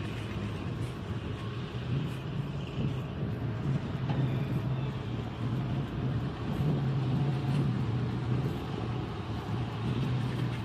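Diesel engine of a loaded Hino dump truck running as the truck drives slowly past, a steady low hum that grows louder about a third of the way in.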